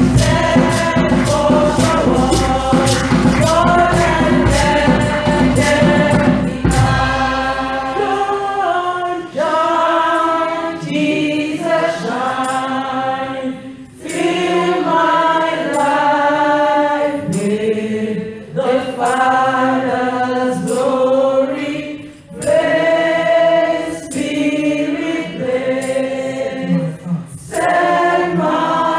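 Gospel choir singing in harmony with low bass and percussion backing; about seven seconds in the instruments drop out and the voices carry on unaccompanied, in phrases with short breaths between them.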